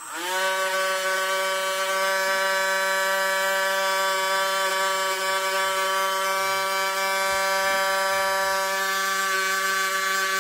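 Handheld rotary tool spinning up and then running at a steady high-pitched whine, used to clean the leftover crust off small screws after a vinegar soak. The pitch rises sharply just as it starts, then holds level.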